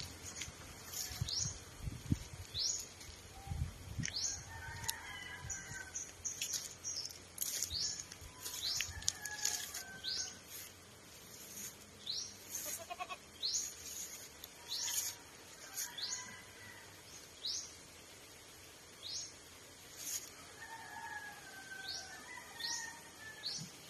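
Birds calling: a short, high, rising chirp repeated about once a second, with lower warbling calls now and then. A few low thumps in the first few seconds.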